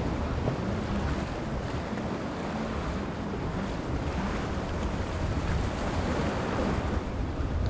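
Strong wind rumbling on the microphone over the steady wash of surf.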